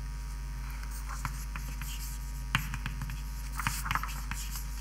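Scattered short taps and scratches of writing, a few strokes at a time, over a steady electrical mains hum.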